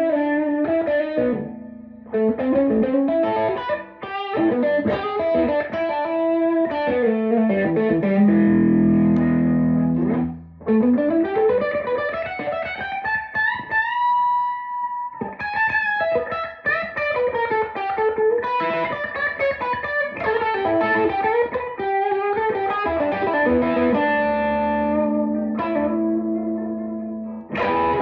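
A 1965 Gibson SG electric guitar played through an amplifier: a run of picked single notes and chords, with a long slide up to a held high note about halfway through.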